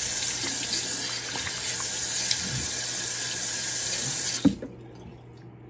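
Water running steadily from a sink tap with small splashes as face wash is rinsed off the face. About four and a half seconds in it stops suddenly with a knock as the tap is shut off.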